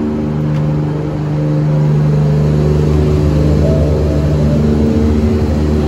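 An engine running steadily with an even hum, its pitch shifting slightly about halfway through.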